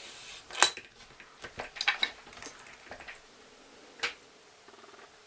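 Light metal clicks and clinks of lock picking tools being handled and set into a Master lockout tagout padlock. There is a sharp click about half a second in, a quick run of clinks around two seconds in, and another click near four seconds.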